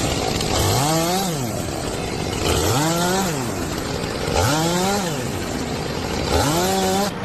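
A small engine revved up and back down four times in a row, about every two seconds.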